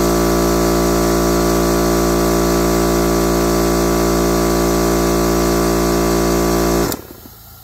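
Husky 8-gallon air compressor running steadily as it pumps up the tank, then shutting off abruptly with a click about seven seconds in, as the tank reaches full pressure.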